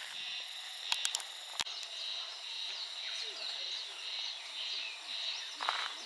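Outdoor ambience of a steady, high-pitched insect drone, with a few short chirps and two or three sharp clicks about a second in.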